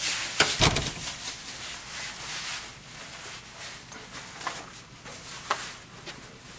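Clothing rustling and swishing as a fabric jacket is yanked and pulled off over the head. There is a heavy thump with sharp knocks about half a second in, and a couple of short sharp clicks later on.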